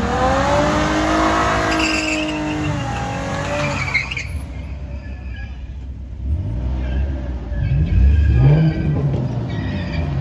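A car's tyres squealing as it spins on paving stones, a wavering, wailing squeal for about the first four seconds. Then an engine revs up and down a few times.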